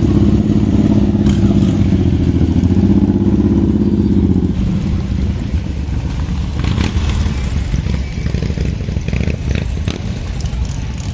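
A procession of cruiser motorcycles riding slowly past. A nearby bike's engine is loudest for the first four and a half seconds, then drops back as quieter bikes follow one after another.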